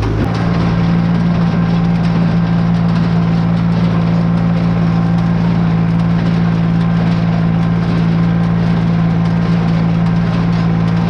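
Tractor engine running steadily at about PTO working speed (near 540 RPM at the PTO) for the baler. The drone shifts slightly just after the start, then holds even.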